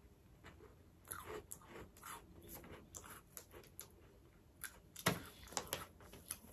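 Faint crunching and mouth clicks of someone biting into and chewing a crisp melon-flavoured butter biscuit, with a few louder crunches about five seconds in.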